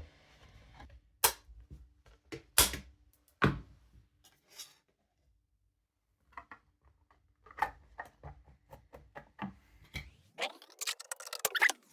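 Scattered sharp clicks and snaps of handling: three loud ones in the first few seconds, fainter ticks after a short lull, then a dense rattle of clicks near the end.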